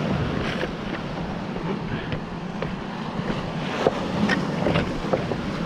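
Sea surf breaking and washing on the shore, a steady rushing, with a strong onshore wind buffeting the microphone.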